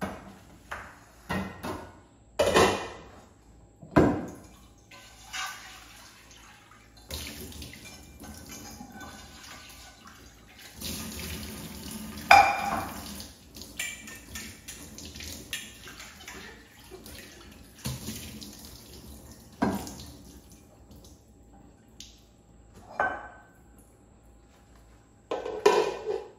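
Kitchen tap running into a sink while a glass pan lid is rinsed under it, the water splashing off the lid. Sharp clinks and knocks of the lid and pan being handled come at the start, and the water runs for about fifteen seconds in the middle, with a few more knocks during and after it.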